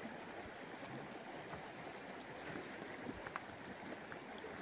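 Shallow stream running over rocks, a faint steady rush of water, with a few light clicks about three seconds in.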